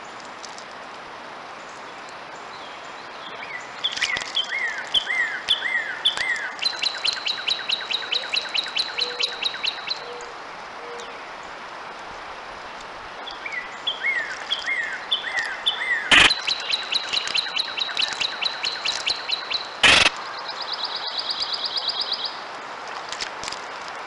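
A songbird singing twice, each song a few slurred falling notes that run into a fast, even trill, with a shorter buzzy trill near the end. Two sharp knocks stand out as the loudest sounds, one partway through the second song and one as it ends.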